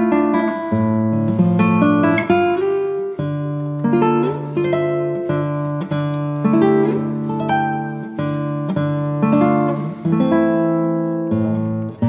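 Background music on a plucked acoustic guitar, picked notes and chords struck about once a second, each fading before the next.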